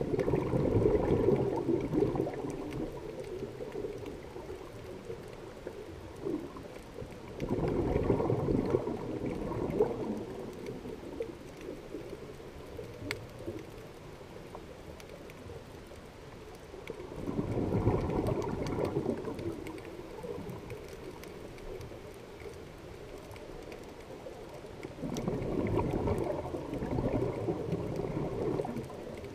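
Scuba diver exhaling through a regulator, heard underwater: four gurgling rushes of exhaust bubbles, each lasting two to three seconds, about every eight seconds, with quieter breathing in between.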